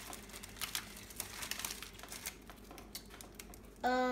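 Candy packaging crinkling and crackling in hands as a chocolate frog box and wrapper are opened, in short irregular bursts. A child's voice starts with a held sound near the end.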